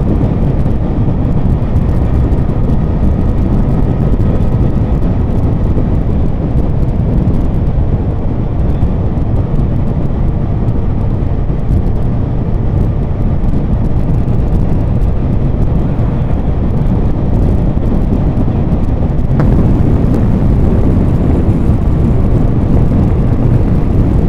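Motorcycle riding at steady road speed: heavy wind rush buffeting the helmet or bike-mounted microphone, with engine and road noise underneath.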